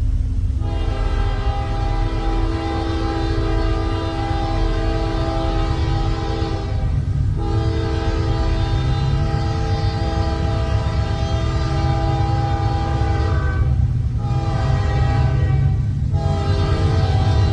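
Norfolk Southern locomotive's air horn sounding a chord of several notes in a horn show: two long blasts of about six seconds each, then shorter blasts near the end, over the steady low rumble of the train.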